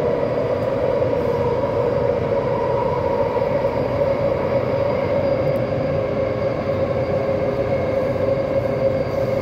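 Taipei Metro C371 train (IGBT-VVVF traction) running between stations, heard inside the passenger car: a steady rumble of the ride with a steady hum from the traction drive, another hum tone joining about six seconds in.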